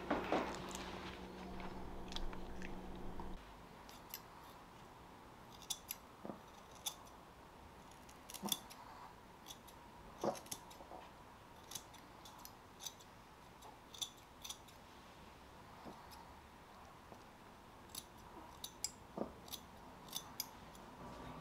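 Steel grooming scissors snipping the fur between a dog's paw pads in short, sharp snips at an irregular pace, some in quick pairs. A low steady hum at the start cuts off after about three seconds.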